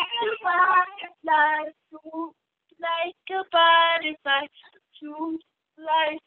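A woman singing a simple song in short phrases with held notes and brief pauses between them.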